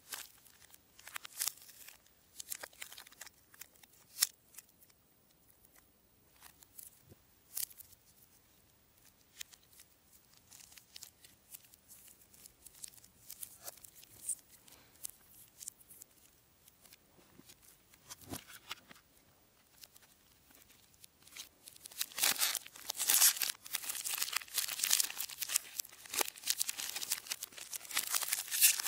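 Foil and plastic chocolate-bar wrappers crinkling and crackling as they are handled, at first as scattered crackles, then dense, louder crinkling for the last quarter.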